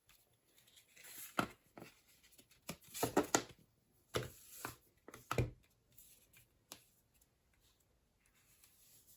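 Hands opening the paper packaging of a metal bank card: crinkling and tearing paper with scattered sharp taps and clicks, busiest about three seconds in and thinning out after about six seconds.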